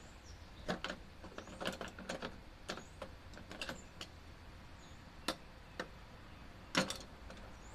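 Scattered metallic clicks and clinks of a ratchet and loosened bolts as bolts are taken off the engine's valve cover, with a quick run of clicks about two seconds in and a sharper knock near the end.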